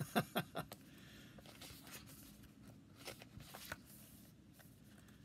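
Pages of a large hardcover book being handled and turned by hand: a few short paper clicks in the first second, then faint scattered rustling.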